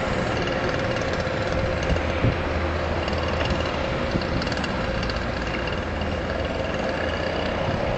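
A small boat motor running at a steady pitch, heard from a distance over a constant rush of wind and water noise.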